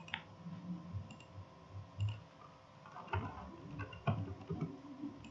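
Faint, scattered clicks of a computer keyboard as a few characters are typed.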